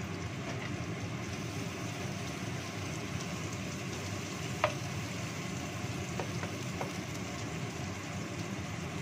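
Onions and white anchovies stir-frying in a non-stick wok, a steady sizzle over a low rumble as a wooden spatula stirs and scrapes. About halfway through the spatula knocks sharply on the wok once, then taps lightly twice.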